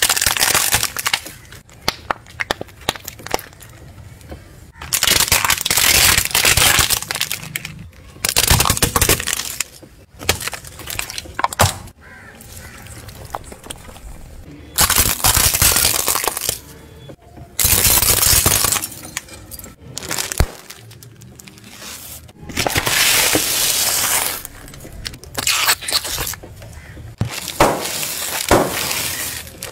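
A car tyre rolls over and crushes a series of objects: plastic toy cars, plastic tubes of jelly candy and sealed snack bags. Each crush is a loud burst of cracking and crunching a second or two long, about eight in all, with quieter gaps between.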